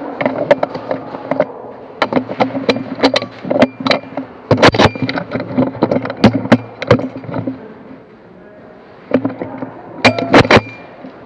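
Airsoft guns firing: sharp, rapid shots in repeated volleys. There is a short lull about three-quarters of the way through, then another burst near the end.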